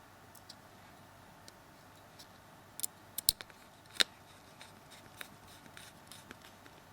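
Small sharp clicks and ticks of a small screwdriver and screw being fitted into a Samsung Galaxy S3's main board and case: a quick cluster of clicks about three seconds in and one louder click at about four seconds, with lighter ticks between.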